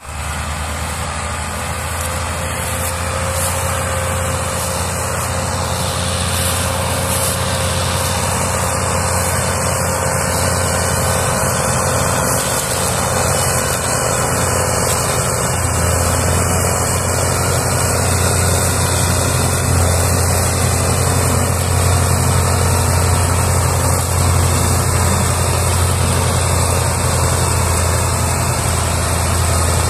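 Diesel tractor engines running hard under load, pulling a heavily loaded sugarcane trolley. It is a steady, deep engine drone that grows gradually louder.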